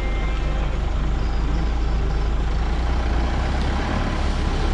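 Motor vehicle driving, with a steady low engine and road rumble.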